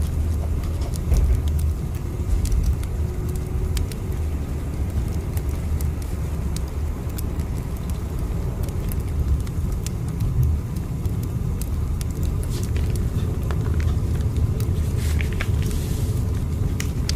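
A train running, a steady low rumble with light clicks scattered through it.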